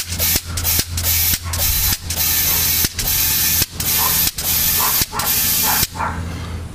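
Air pump forcing air into a reverse osmosis tank's rubber bladder in quick repeated strokes, each a hiss of air, just under two a second, stopping about six seconds in.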